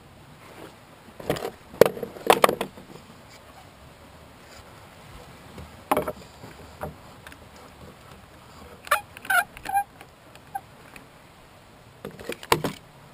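Handling knocks and clatters as a black ABS plastic pipe is set against a wooden stair frame and a one-handed bar clamp is fitted onto it: several sharp knocks about a second or two in, another single knock midway, a run of clicks with short squeaks, and a last cluster of knocks near the end.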